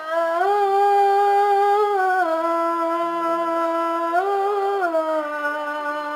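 A boy's voice chanting the adhan, the Islamic call to prayer: one long drawn-out vowel in a melodic run, with no break. It steps up in pitch twice and each time falls back to the same held note.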